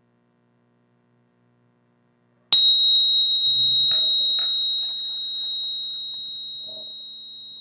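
A small meditation bell struck once about two and a half seconds in, ringing with a single high pure tone that slowly fades.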